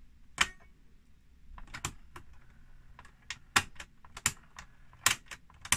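The ZX Spectrum +2's built-in Datacorder cassette deck being worked by hand: a string of sharp mechanical clicks and clunks as its piano-key transport buttons are pressed and latch or release, with the tape motor whirring faintly between presses as the freshly repaired deck is tested.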